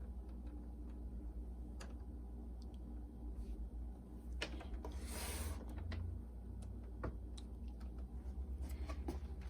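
Scattered small clicks of plastic parts and a brief rustle about five seconds in, as hands fit wire connectors into a boombox's inner frame, over a low steady hum.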